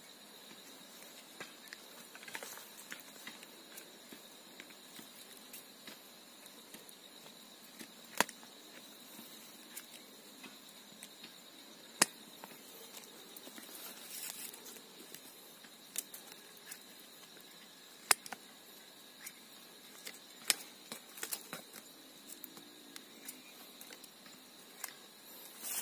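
Faint scraping and picking in soil around the roots of a wild shrub being dug out by hand, broken by sharp clicks, four of them loudest, over a steady high insect trill.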